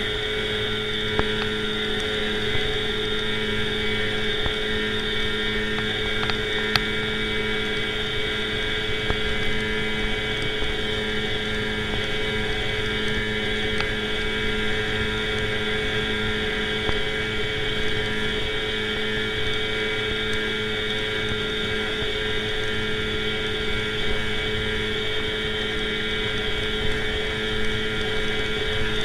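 Johnson Seahorse 15 hp outboard motor running at a steady, unchanging speed, pushing a small inflatable boat along, with water and wind noise under it.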